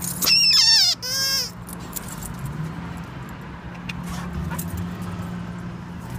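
A puppy whining twice in quick succession, a high cry that slides down in pitch and then a shorter, steadier one, followed by a steady low hum of traffic.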